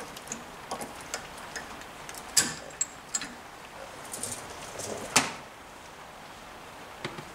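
Scattered light clicks and clinks of small metal engine parts and hand tools being handled and set down on a workbench, with two louder knocks about two and a half and five seconds in.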